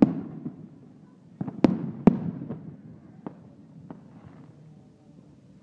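Fireworks going off: a loud bang at the start, a cluster of three loud bangs about one and a half to two seconds in, then a few fainter pops spaced further apart, each bang trailing off with a short echo.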